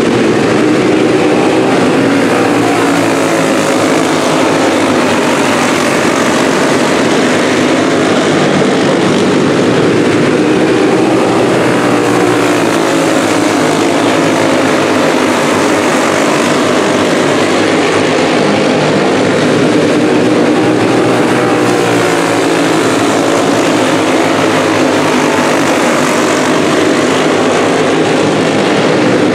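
A pack of dirt-track racing go-karts running laps, their small engines buzzing together in a steady overlapping drone, with several pitches rising and falling as the karts pass.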